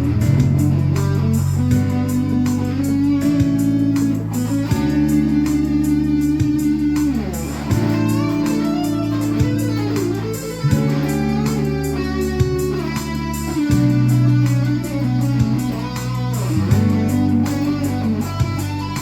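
Guitar practice playing over a steady low bass line, with sustained notes and sliding, bending notes around the middle.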